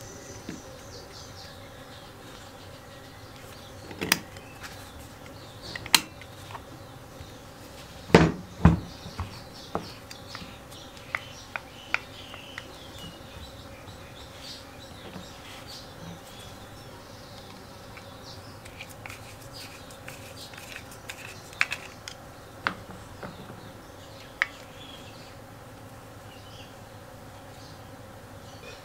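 Light clicks and knocks of a centrifugal clutch's shoes, springs and hub being handled and fitted together, scattered through, with the loudest pair of knocks about eight seconds in. A steady faint hum runs beneath.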